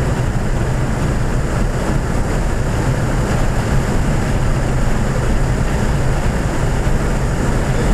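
Steady in-cabin drone of a 2014 Ford Fiesta ST's 1.6-litre turbocharged four-cylinder running at speed, mixed with road and wind noise.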